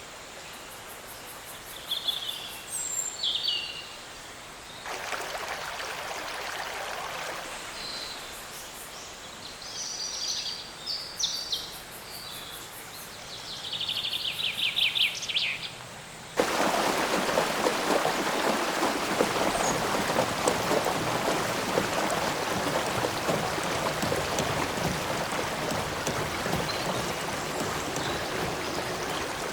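Birds chirping and trilling in short calls over a faint background hiss. About halfway through this cuts off suddenly and gives way to a loud, steady rush of running stream water.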